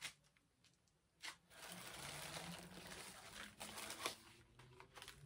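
Soft crinkling and rustling of packaging as small items are handled in a gift box: a light tap at the start and another about a second in, then about two seconds of steady rustling that thins out after about four seconds.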